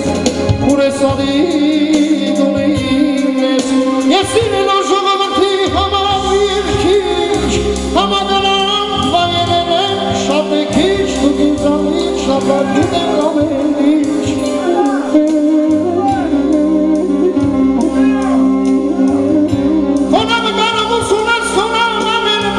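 Armenian muxam-style live music: a male singer sings a melismatic, ornamented melody through a PA over a steady keyboard drone and a low repeating beat. About twenty seconds in, a clarinet enters with a held melodic line.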